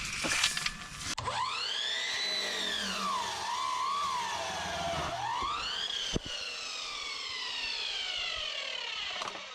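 Siren wailing, rising and falling in pitch and wavering in the middle, then sliding slowly down and fading; a single short knock comes partway through.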